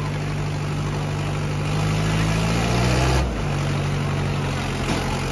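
Diesel tractor engines, a Mahindra Arjun Ultra straining against a Sonalika, running hard under full pulling load in a tractor tug-of-war; a steady low engine drone whose note dips slightly about three seconds in, then holds.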